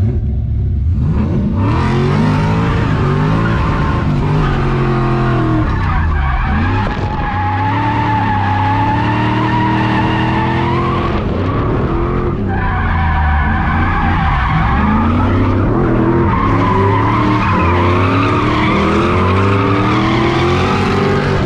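Drift car's engine revving up and down again and again as it slides through the corners, with the tyres squealing almost throughout.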